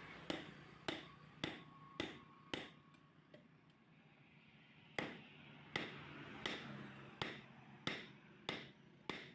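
Hand hammer striking iron on an anvil, a smith forging a horseshoe: five even blows at about one and a half a second, a pause of about two seconds, then seven more blows at the same pace, each with a short metallic ring.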